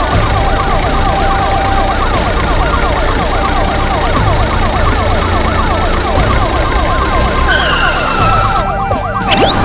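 Several police sirens yelping at once in fast up-and-down sweeps over a low vehicle rumble, with a short rising swoosh near the end.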